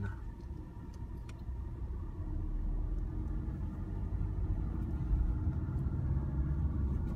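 Car engine and road rumble heard from inside the cabin, growing gradually louder as the car pulls away and gathers speed.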